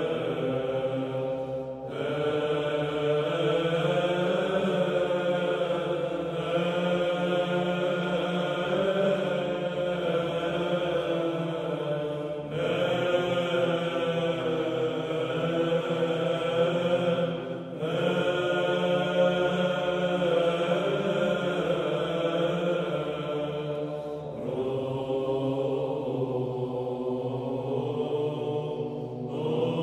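Background music of slow vocal chant: long held phrases several seconds each over a sustained low note, with short breaks between phrases.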